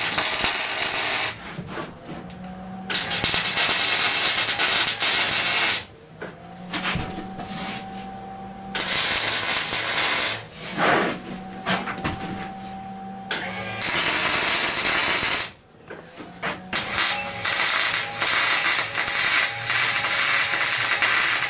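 Electric arc welding: thick steel anvil-top plate being tacked and welded onto its preheated stand, sizzling in several runs of one to five seconds with short pauses between them.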